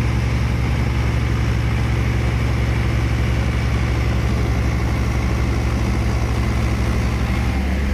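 Diesel engines of a four-wheel-drive tractor stuck in mud and the tracked combine harvester beside it, running steadily at constant speed. The low engine hum shifts slightly near the end.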